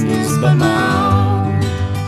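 Country-style acoustic band recording: acoustic guitars strumming over electric bass and drums, with a sung line carrying on through the middle.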